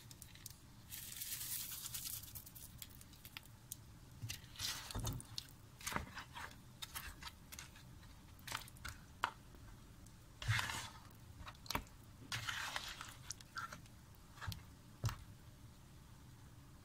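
A spatula stirring a thick chicken and potato curry in a pot: irregular wet scrapes and squelches, with several sharp clicks of the spatula against the pot.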